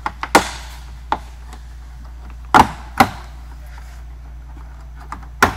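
Sharp plastic pops of a Tesla Model S front door panel's retaining clips letting go as a nylon pry bar works around its edge. There are about six separate snaps: small ones at the start, two loud ones less than half a second apart midway, and another loud one near the end.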